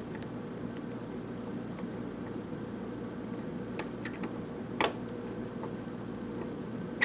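A few faint, scattered clicks of a lock pick working the pin stack of a Corbin Euro cylinder under tension, over a steady low hum.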